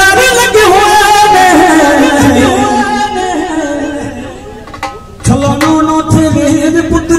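Live Punjabi devotional song sung by a man through a PA system, with keyboard and dholak accompaniment. About four seconds in the music dips for a second, then comes back with dholak strikes.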